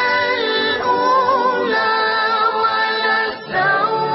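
A boy's solo voice reciting the Quran in a melodic, drawn-out chant, holding long ornamented notes that waver in pitch, with a short pause for breath about three and a half seconds in.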